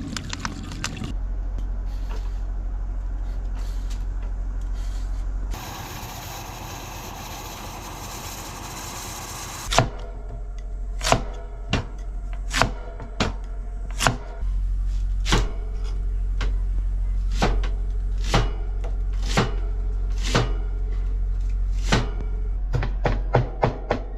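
Background music with a low sustained bass; about ten seconds in, a knocking wood-block beat comes in, quickening near the end.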